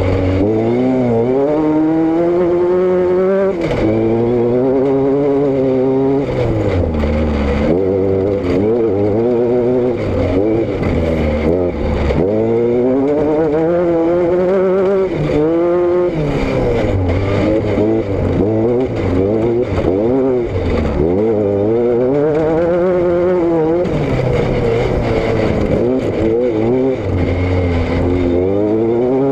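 Vehicle engine and exhaust under way, the revs climbing and falling again and again as it is driven.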